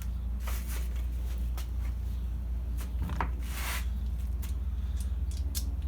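Scattered light clicks and a short scrape of hands working on a lawnmower's carburetor and its fittings, over a steady low hum.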